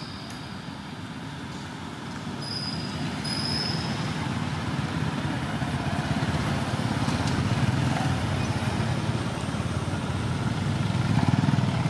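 Low rumble of a motor vehicle on the road, building over several seconds and loudest near the end. Two short high chirps sound a few seconds in.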